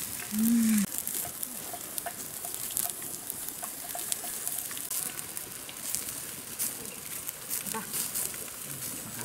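Whole catfish roasting on a bamboo rack over an open wood fire: sizzling with frequent sharp pops and crackles. A short cry from a voice about half a second in is the loudest sound.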